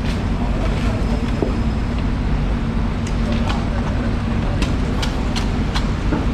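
A steady low machine hum with a held low tone, and a run of sharp clicks and knocks about halfway through.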